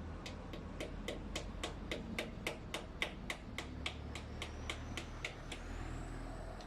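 A run of about twenty sharp, evenly spaced mechanical clicks, roughly three or four a second, stopping about a second before the end, over a low steady rumble.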